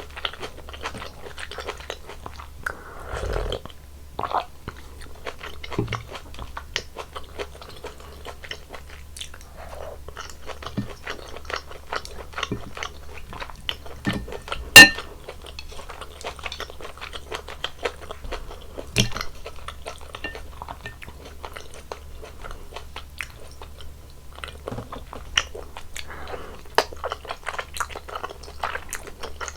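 Close-miked chewing and crunching of mala tang, spicy Sichuan noodle soup, with many small wet mouth clicks. About halfway through comes one sharp, ringing clink, the loudest sound.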